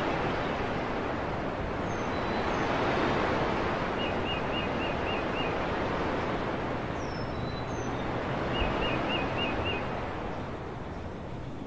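Steady rush of flowing water with bird chirps over it: two quick runs of about five chirps, about 4 s and 8.5 s in.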